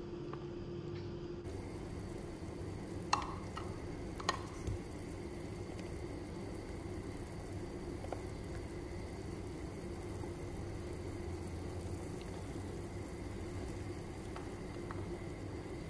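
Water at a rolling boil bubbling in a pot on a gas stove, a steady seething noise with a low hum under it. A few sharp clicks come about three and four seconds in.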